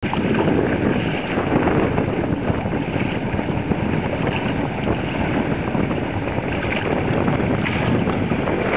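Wind buffeting the microphone over water rushing and splashing past the bow of a trimaran's outer hull under sail: a steady, fluttering noise.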